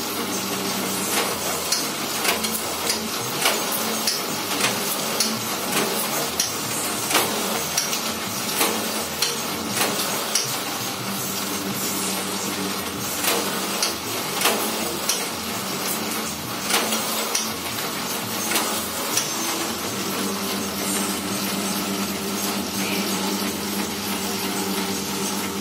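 Satay-skewer making machine running on its 1 hp electric motor: a steady motor hum, with sharp clicks and knocks at irregular intervals as the sticks are shaved out.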